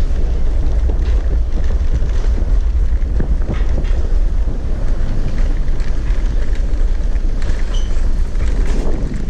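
Four-wheeled e-bike rolling over cobblestones: a continuous rumble and jittery rattle from the tyres and frame, with wind buffeting the camera microphone.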